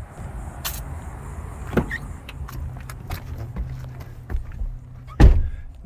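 Clicks and knocks of things being handled inside a car, over a steady low hum, with one loud thump about five seconds in.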